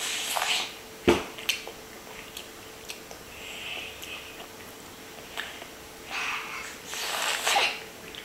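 Young child eating corn on the cob: short, wet biting and chewing noises in bursts, with a sharp click about a second in.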